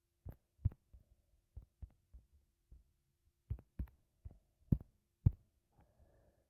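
A series of about a dozen short, irregular knocks and thumps, the loudest a little under a second in and twice near the end.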